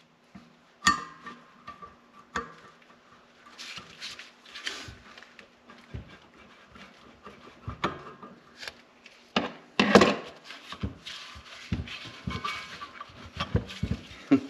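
Snowmobile secondary clutch being taken apart by hand: irregular clicks, knocks and light scrapes of metal parts and tools, a few with a short ring. The loudest knock comes about ten seconds in.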